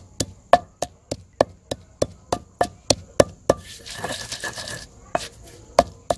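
A wooden pestle pounding green chillies and herbs in a stone mortar: sharp, regular knocks about three a second. Partway through the pounding pauses for about a second of hissing noise, then resumes.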